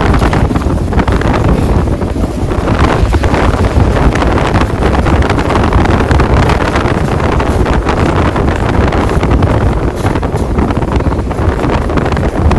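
Wind buffeting the microphone: a loud, gusty rumble with no steady tone running through it.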